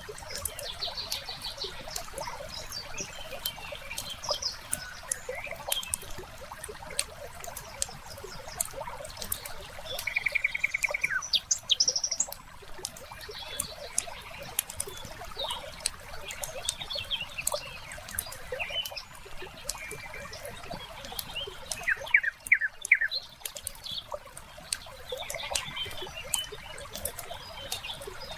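Wood fire crackling with frequent small pops over a steady hiss, while songbirds chirp now and then. A rapid trill comes about a third of the way through, and a quick run of falling notes about three-quarters of the way through.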